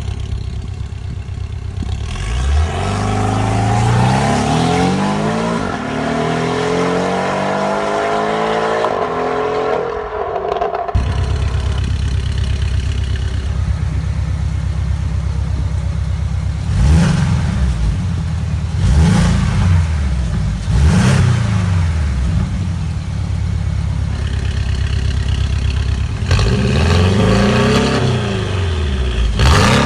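Porsche 718 Boxster/Cayman engine and exhaust: the engine pulls up in pitch for several seconds under acceleration, then cuts off abruptly to a steady idle. Then come three separate free-revs, each rising and falling, and near the end a quick run of throttle blips.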